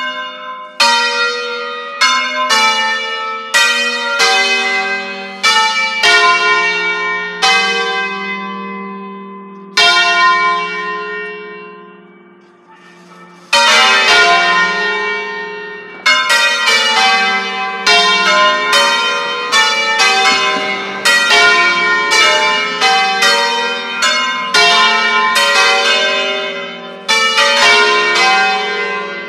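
The five-bell Ambrosian-system peal of a parish church, tuned in F3, ringing a preset, automatically controlled solemn concert (concerto solenne): single strokes of different bells follow one another in a tune, each ringing on. About ten seconds in, one stroke is left to ring out for a few seconds, then the strokes come back quicker and overlapping.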